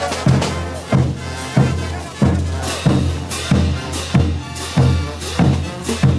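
Bolivian brass band playing, driven by a steady bass drum beat about every two-thirds of a second.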